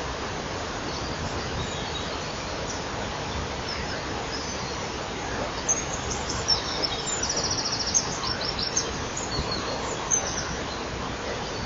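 Steady background hiss. About halfway through, a small songbird sings a few seconds of high song that includes a fast, even trill.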